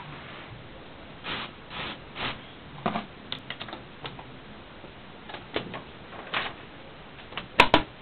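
Irregular mechanical clicks and clunks from a 1951 Underwood No. 6 desktop typewriter as its parts are worked by hand, with a sharp double click near the end, the loudest.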